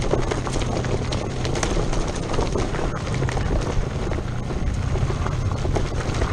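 Broken-down dirt bike rolling over a rough, stony trail: a steady rush of tyre and rolling noise, with constant small rattles and knocks as the bike bumps over the rocks.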